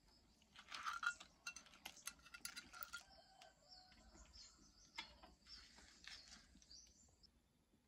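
Faint metal clinks of a ladle against a wok, several in the first three seconds, with faint high chirping calls in the background.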